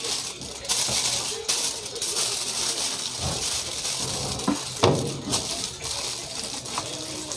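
Aluminium foil crinkling and rustling as hands fold and press it around a whole duck, with a sharper crackle about five seconds in.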